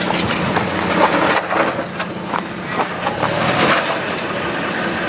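4x4 truck engine running slowly at crawling speed in the low hum, while the tyres crunch and grind irregularly over rocks and loose ground.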